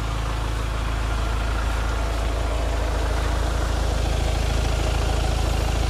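A vehicle engine idling steadily, a constant low hum that does not change.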